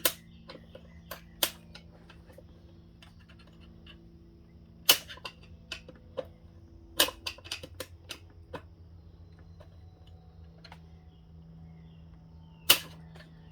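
Screwdrivers prying at a large snap ring inside a 4L65 automatic transmission case: a string of sharp metal clicks and clacks at irregular intervals, with a cluster in the middle and a loud one near the end.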